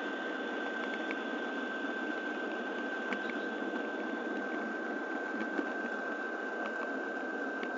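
Model train rolling along the track, heard from on board: a steady hum and rumble with one constant high whine, and scattered light clicks.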